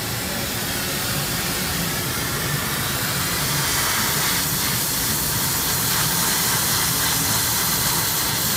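Hydrogen-oxygen (HHO) torch flame hissing steadily, growing a little louder over the first few seconds, with a faint low rumble underneath.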